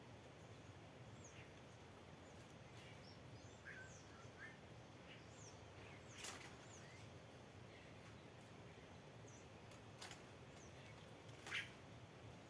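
Small birds chirping, faint short calls scattered throughout, with two louder calls about halfway through and near the end, over a steady low outdoor hiss.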